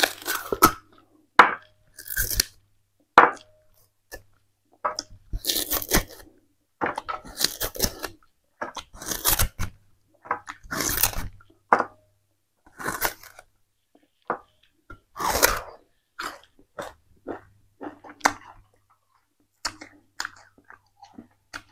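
Purple-rinded sugarcane crunching and tearing as a person bites the hard rind off a stalk with their teeth and chews the fibrous pith, in irregular sharp crunches every second or so, picked up close by a clip-on microphone.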